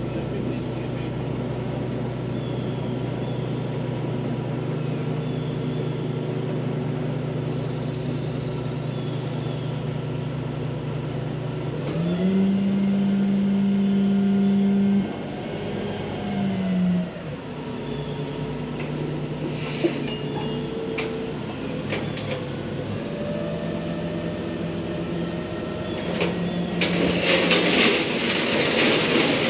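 Diesel dump truck engine idling, then raised to a higher, steady speed from about twelve seconds in, with another brief rise a few seconds later, as the hydraulic hoist tips the bed. Near the end, a load of crushed stone starts pouring out of the tailgate, and the sliding stone becomes the loudest sound.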